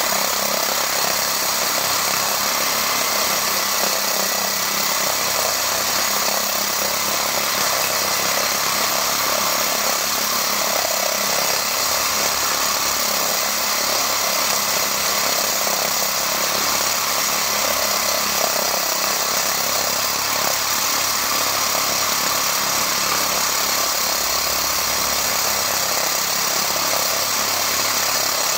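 Homemade core drill built from an angle grinder, running steadily as its core bit grinds wet into a concrete slab.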